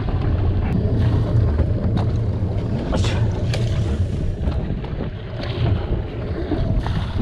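Wind buffeting the microphone over the rush of water along the hull of a sailing yacht under way, with a few faint clicks.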